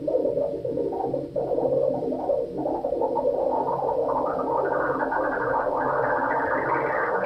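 Homemade electronic sound effect that sounds like bubbling water heard underwater: a dense, steady bubbling texture that grows brighter and fuller over the seconds.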